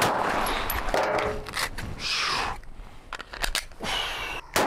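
Handling noise from a pistol and the shooter's gear: a string of sharp, separate clicks and rustles, with a short rushing noise about two seconds in.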